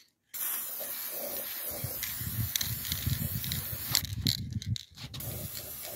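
Aerosol spray paint can spraying with a steady hiss, starting about a third of a second in, breaking off briefly twice around four to five seconds in, then resuming.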